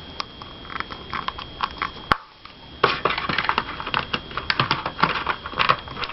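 Packaging being handled at close range: crinkling and small clicks, with one sharp click about two seconds in, a brief lull, then denser crinkling from about three seconds in.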